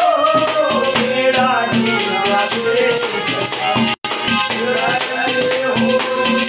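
Instrumental interlude of a Haryanvi ragni: a harmonium plays the melody over held tones while a hand-held plastic shaker is rattled to a steady beat. The sound cuts out for an instant about four seconds in.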